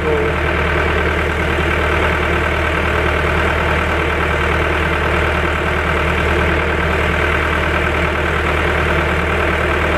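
Timberjack 1010B forwarder's diesel engine idling steadily, with a deep hum.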